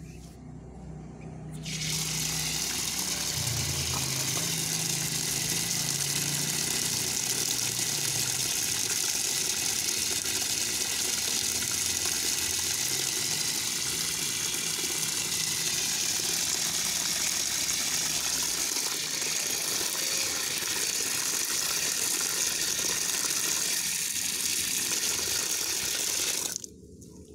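Water from an outdoor tap gushing steadily into a plastic basin of dry bran feed, filling it. It starts about two seconds in and stops suddenly near the end.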